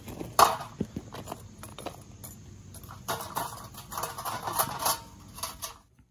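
Irregular crackles and sharp pops from a sand mold just filled with molten cast iron, stopping suddenly near the end.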